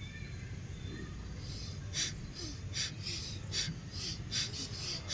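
Bhastrika pranayama bellows breathing: rapid, forceful breaths pumped through the nose in a steady rhythm of about two to three a second, starting about a second and a half in.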